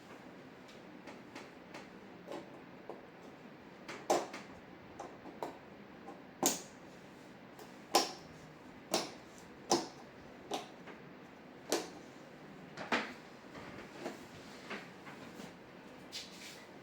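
Irregular sharp clicks and knocks of TV panel parts being handled and fitted into place by hand, a dozen or so spread over the stretch, several of them louder.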